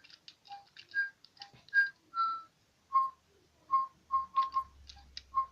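Digibirds electronic toy bird tweeting a tune of short whistled notes, hopping between a few fixed pitches at about two notes a second, set off by blowing on it.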